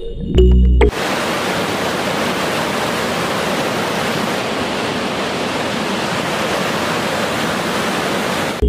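Lidder River, a fast, rocky mountain river, rushing through whitewater over boulders: a steady, even sound of running water. It begins about a second in, when the background music cuts off.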